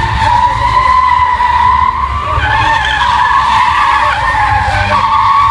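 Toyota GT86 drifting: its rear tyres give a long, loud squeal that shifts in pitch as the slide changes, over the low drone of the engine.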